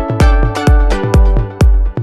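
Background electronic music with a steady kick-drum beat, about two beats a second, under sustained chords.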